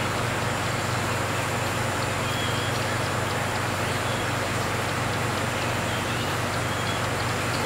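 Steady hum and hiss of running aquarium equipment in a fishroom, such as a filter or air pump moving water, with a few faint short high chirps.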